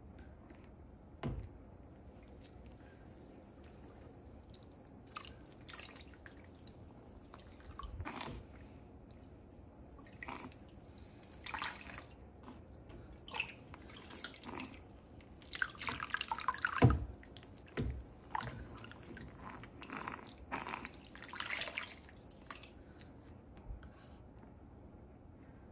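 Water poured from a mug over a small dog in a sink bath: irregular splashing and trickling, loudest about sixteen seconds in, with a couple of low knocks.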